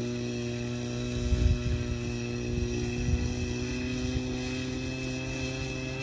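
Radio-controlled model airplane's motor and propeller running at a steady low throttle as it taxis across grass, a steady pitched hum that edges slightly higher near the end. A brief low rumble about a second and a half in.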